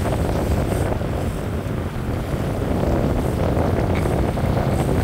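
Game-fishing boat's engine running steadily while backing down on a hooked fish, with propeller wash churning and rushing at the stern and wind buffeting the microphone.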